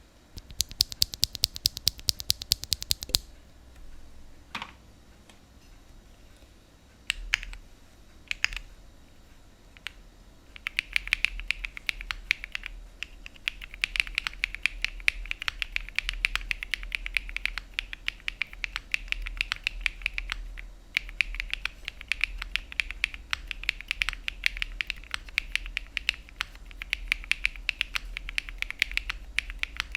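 Typing on a Jris75 mechanical keyboard with BSUN x KeysU Bunny linear switches: a fast, even run of keystrokes in the first few seconds, a few single presses, then steady continuous typing from about ten seconds in.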